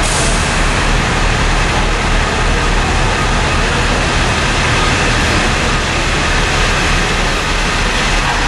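A 1986 KME/Darley fire engine's engine idling steadily in the station bay.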